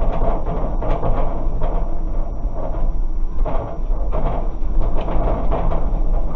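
Loud, steady rumbling noise with faint irregular knocks, and a door swinging near the end.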